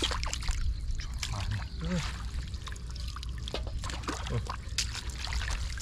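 Shallow field water splashing and trickling in short irregular bursts, with a couple of brief vocal exclamations.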